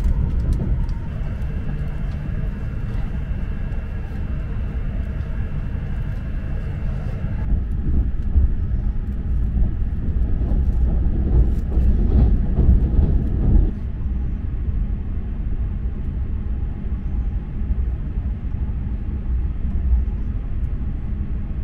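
Steady low rumble of an E6-series Komachi Shinkansen running, heard from inside the passenger car. A faint steady whine sits over it for the first several seconds, and the rumble swells louder for a few seconds around the middle.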